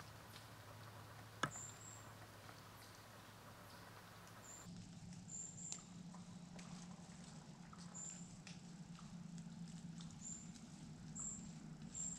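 Quiet woodland ambience: faint scattered rustles and ticks, as of dry autumn leaves, with one sharper click about a second and a half in, and short high chirps repeating every second or two.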